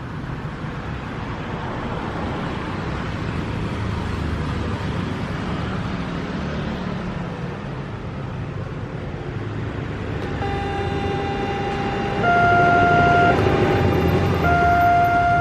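Road traffic rumbling, then about ten seconds in the automatic warning siren of a railway level crossing starts: an electronic two-tone alarm that becomes loud about two seconds later and alternates between a higher and a lower pitch about once a second, signalling that a train is approaching.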